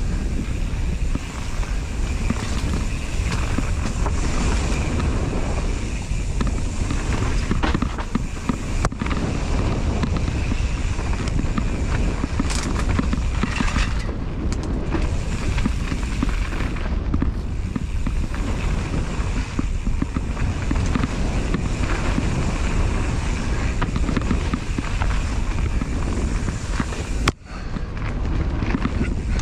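Mountain bike descending a dirt singletrack: tyres rolling over the dirt and the bike rattling over bumps in a steady clatter of small knocks, with wind rumbling on the camera's microphone. The sound drops out for a moment near the end.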